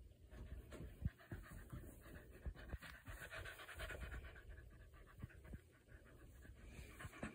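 A dog panting softly close to the microphone, with a few light ticks in between.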